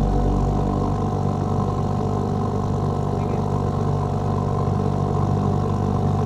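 An engine running steadily at low revs, an even unbroken drone.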